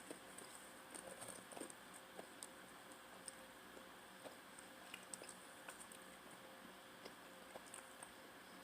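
Faint chewing of pizza: soft, irregular mouth clicks and smacks, over a low steady room hum.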